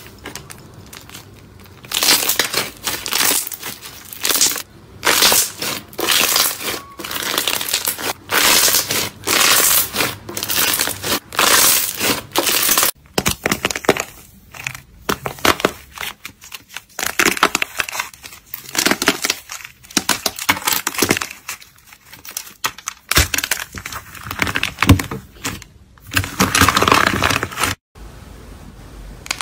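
Hands squeezing and pressing crunchy slime: loud crackling, crunching squelches in repeated bursts about once a second. After a break partway through, sparser, irregular cracks and crinkles as a slime ball with a cracked clay coating is pressed.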